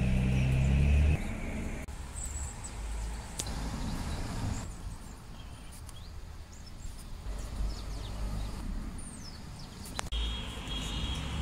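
Outdoor ambience: a steady low rumble of road traffic, with small birds chirping now and then.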